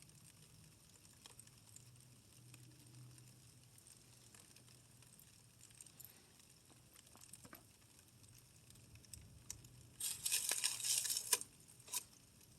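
Faint scattered ticks, then about ten seconds in a loud rustle of paper being handled and crumpled for over a second, with a shorter rustle near the end.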